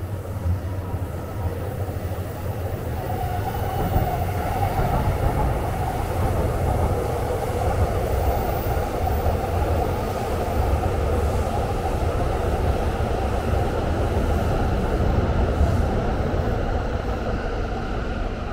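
Train running past with a long, steady rumble that grows louder about four seconds in and holds, easing slightly near the end.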